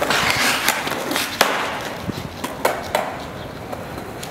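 Skateboard wheels rolling on concrete, with one sharp clack of the board about a second and a half in and a few lighter clacks around the three-second mark.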